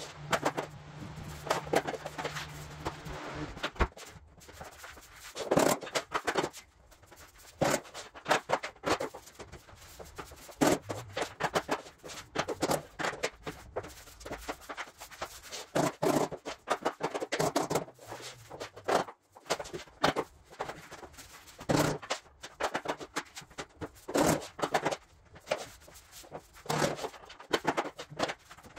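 Luxury vinyl planks being laid by hand on a floor: an irregular string of knocks, taps and scrapes as planks are set down, slid and clicked together. A low steady hum runs for the first few seconds.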